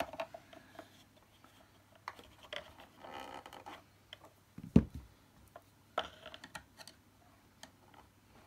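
Handling noise from refitting the brush roll and drive belt into an Electrolux 502 upright vacuum's nozzle with a screwdriver: scattered small clicks and scrapes, a short scraping patch about three seconds in, and one louder knock near five seconds in.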